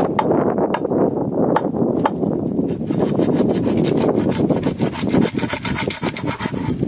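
A cleaver sawing and scraping at a pangasius catfish's tail fin against a wooden chopping block, a fast rasping back-and-forth that turns sharper and scratchier about halfway through.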